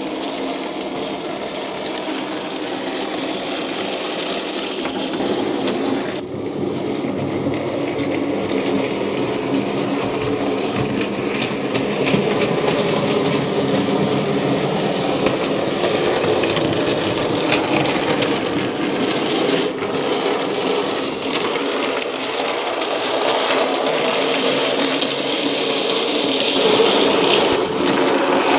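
OO gauge model locomotive's small electric motor whirring steadily as the model train runs on its track, with faint ticking from the wheels on the rails; it grows louder near the end as the train nears.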